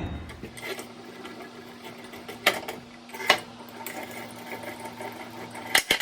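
Steady mechanical hum with a few sharp metallic knocks and clanks, three of them standing out, as metal parts are handled and set up on a Shopsmith for drilling.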